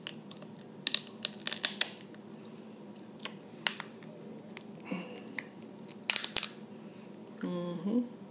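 Crab shell cracking and snapping as it is bitten and pulled apart by hand, in sharp cracks clustered about a second in, a couple more singly, and another burst around six seconds. A short hummed voice sound comes near the end.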